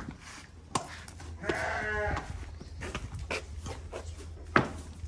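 A farm animal bleats once, a wavering call of under a second about a second and a half in, among scattered clicks and handling noise, with one sharp knock near the end.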